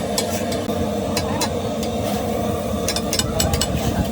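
Steady low engine drone, with sharp clicks here and there and a quick run of them about three seconds in.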